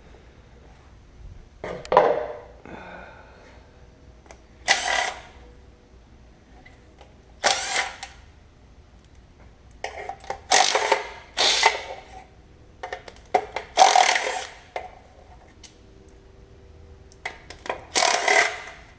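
Hand tools at work on a Chevy engine being torn down: about seven short bursts of tool noise a few seconds apart, with scattered clicks between them.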